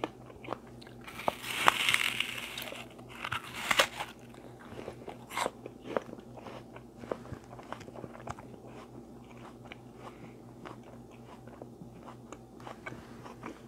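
A person eating close to the microphone: crunchy bites and chewing, busiest in the first few seconds, then thinning out to small, quieter mouth clicks.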